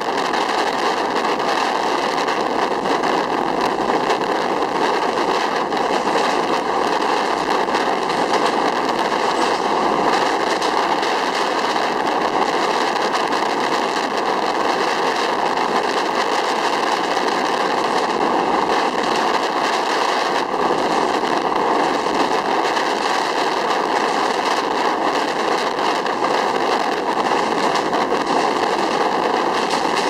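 Steady rushing noise of a passenger train running at speed, heard from just outside the coach: wheels rolling on the rails and air rushing past.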